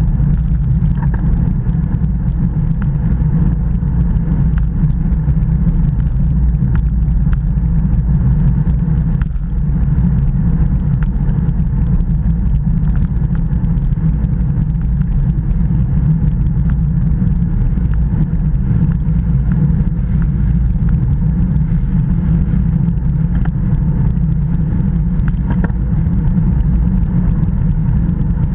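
Wind rushing over the microphone of a bike-mounted action camera on a road bicycle riding at about 25 km/h: a steady low rumble.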